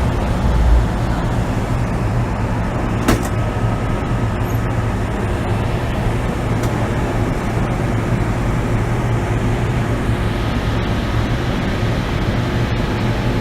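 Cabin noise of an MTR M-Train electric multiple unit running steadily: a continuous rumble of wheels and running gear with a steady low hum, and a single sharp click about three seconds in.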